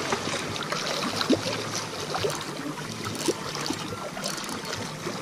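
Small sea waves lapping and splashing among shoreline rocks: a steady wash of water with scattered little splashes and gurgles.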